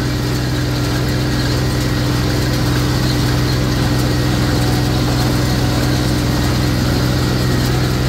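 Tractor engine running steadily under load while powering a New Holland small square baler with a bale thrower through the PTO: a constant, even hum with no breaks.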